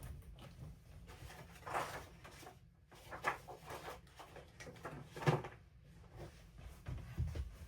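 A few brief knocks and rustles from craft supplies being handled and set down on a work table, three more distinct ones spaced about a second and a half apart, then a couple of low thuds near the end.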